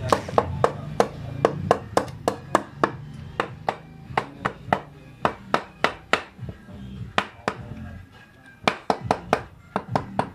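A tool repeatedly tapping a motorcycle's aluminium clutch cover, a quick run of sharp knocks with a short lull about eight seconds in, as the cover is worked loose from the engine case. Background music plays underneath.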